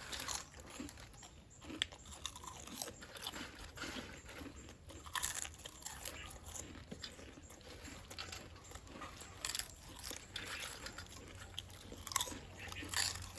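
Potato chips being crunched and chewed by two people eating fast, a steady run of irregular crisp crunches.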